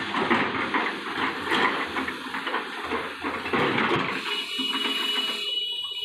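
Broken stone clattering and tumbling into the steel dump body of a Tata tipper truck as an excavator bucket empties a load of rock, a dense run of knocks. About four seconds in, a steady high whine joins as the clatter thins.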